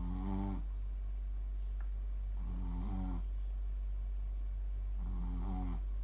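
Shih tzu snoring in its sleep: three short, pitched snores about two and a half seconds apart, over a steady low hum.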